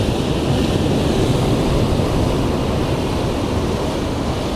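Steady noise of ocean surf washing on rocks, with wind rumbling on the microphone.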